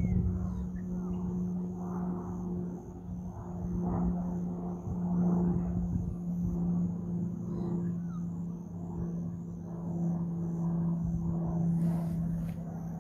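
A steady engine drone holding one low hum tone, with low rumble.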